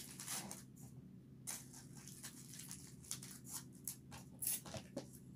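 Aluminium foil crinkling in short, scattered rustles as a foil-wrapped food parcel is handled.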